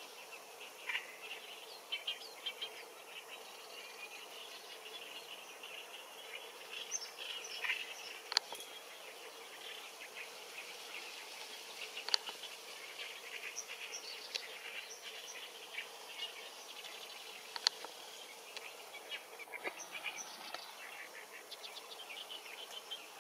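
Wetland wildlife ambience: a steady scatter of short, high chirps and trills from small animals, with a few sharp clicks about 8, 12 and 18 seconds in.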